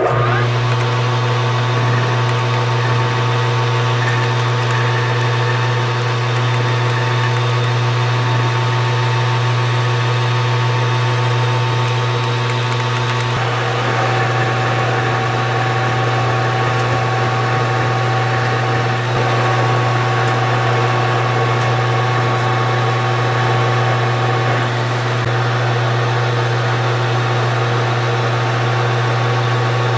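Metal lathe running under power, turning a steel round-stock bar while a carbide insert tool cuts a shoulder on its end. A steady, loud hum with several steady tones over it; the tones change slightly about 13 seconds in.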